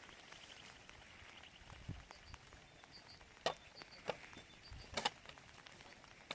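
Sharp knocks or blows, four of them irregularly spaced from about halfway through, with faint short high chirps in between.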